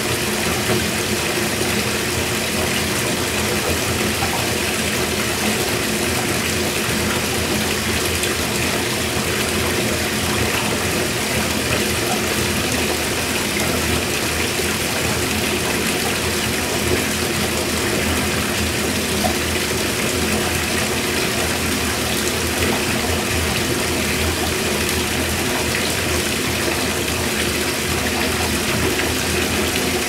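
Water from the tap pouring into a fiberglass bathtub as it fills: a steady, even rush of running water.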